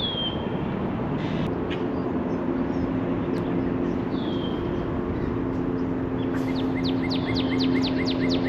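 Songbirds calling over a steady low mechanical hum. There is a downslurred whistle at the start and another about four seconds in, then a fast run of sharp descending notes, several a second, over the last two seconds.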